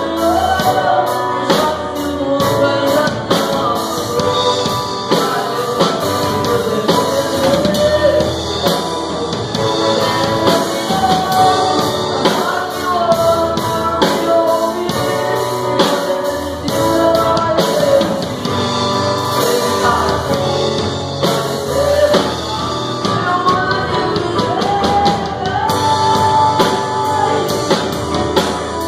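Live gospel band: a man sings into a microphone over strummed acoustic guitar, a drum kit keeping a steady beat, and keyboard.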